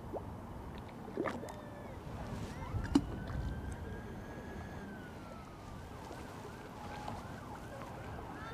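Faint outdoor background of distant traffic, with a far-off siren wailing, holding then sliding down in pitch in the middle, and a couple of light clicks.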